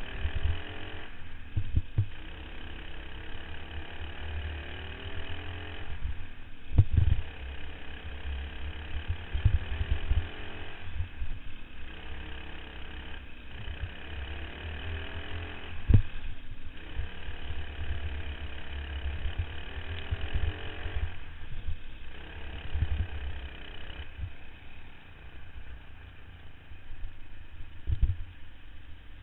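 Racing kart engine heard from onboard, revving up on the straights and dropping off briefly into the corners, over and over. A steady low rumble runs underneath, with a few sharp knocks; the loudest comes about halfway through.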